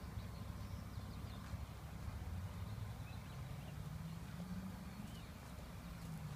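A horse trotting on a sand arena, its soft hoofbeats under a steady low rumble of wind on the microphone. A low hum rises slightly in pitch in the second half, with faint bird chirps.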